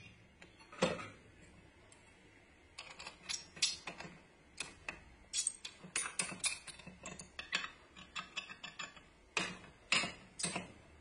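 Hex key turning small screws into an aluminium side plate on an aluminium frame: light metallic clicks and ticks in an uneven run from about three seconds in, with a few louder clicks near the end.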